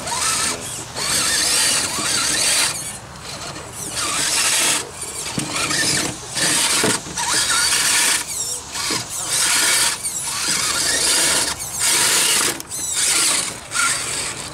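Electric motor and gears of a radio-controlled scale crawler truck whining in repeated bursts of throttle, each about a second long with short pauses between, as it crawls over rocks.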